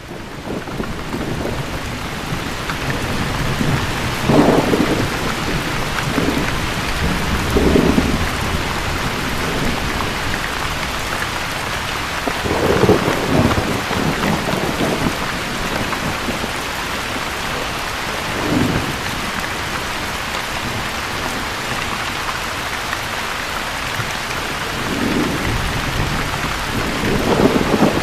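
Steady heavy rain with low rumbles of thunder swelling in every few seconds, fading in at the start.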